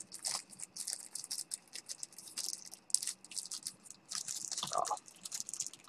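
Thin packaging wrapper being crinkled and pulled open by hand, a string of quick, irregular crackles.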